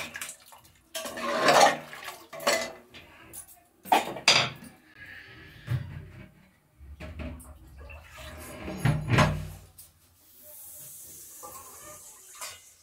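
Metal cookware clanking: a ladle and steel bowls knocking against an aluminium pressure cooker in a few sharp clanks, with a steady hiss near the end.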